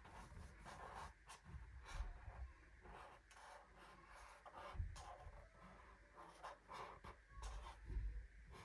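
Felt-tip marker drawing on paper in short, faint scratching strokes, with a few soft low bumps along the way.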